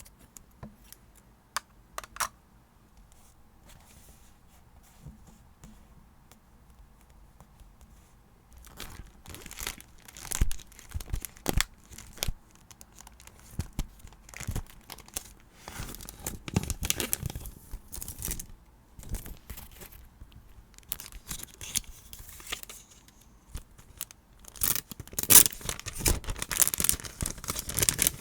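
A few light clicks, then from about eight seconds in, close-up paper and wrapping crinkling and tearing, loudest near the end, from diary-decorating materials being handled.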